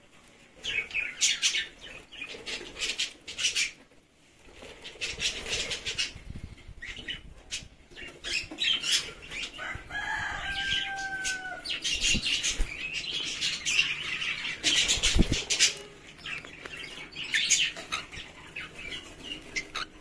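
Budgerigars and cockatiels flapping their wings and chattering in irregular bursts, with one short whistle about ten seconds in.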